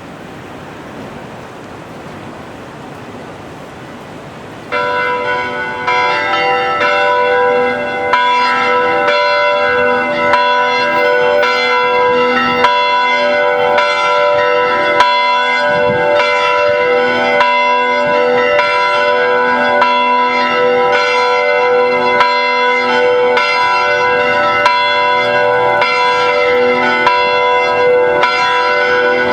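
Clock-tower chime of large metal bells, struck one after another in a running sequence so that their tones ring on and overlap. It starts suddenly about five seconds in, after a few seconds of steady rushing background noise.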